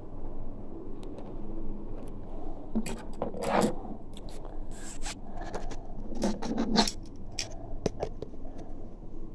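Close handling noises: rustling and scraping with scattered clicks, and two louder scraping bursts about three seconds and six and a half seconds in.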